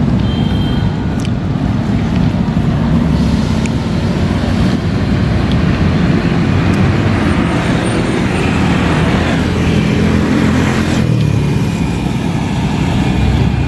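Road traffic noise: cars and other motor vehicles running along a busy road, a continuous loud rumble that dips briefly about eleven seconds in.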